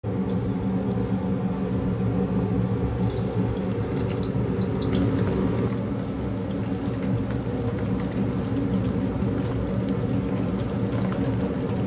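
Gas stove burners running with a steady low rumble while a pot of water boils hard, with small crackles and pops of bubbling over it.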